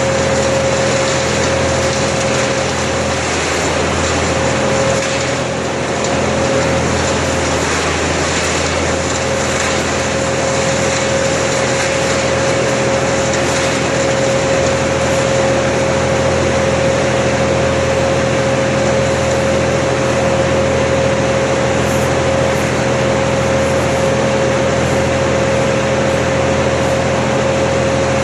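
Engine-driven machinery running steadily at high speed, with a constant whine over a dense noise and no change in speed.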